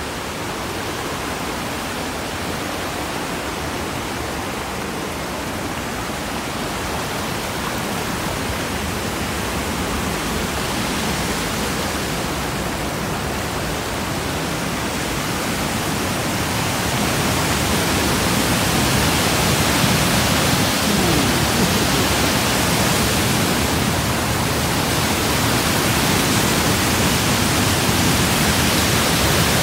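Rushing white water of the Sol Duc River rapids and Sol Duc Falls, a steady, even noise that grows steadily louder, stepping up about two-thirds of the way through as the falls come close.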